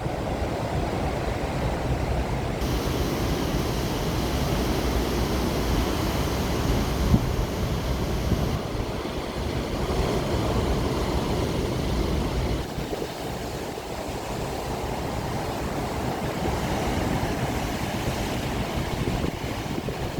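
Storm surf breaking on the shore with strong wind rumbling on the microphone, a continuous roar that changes character abruptly a few times.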